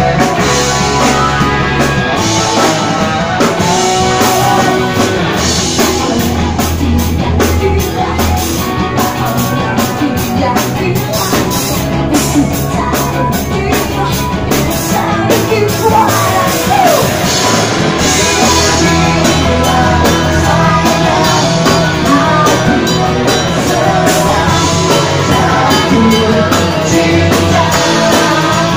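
Live rock band playing: electric guitars and drums, with a woman singing lead into a microphone.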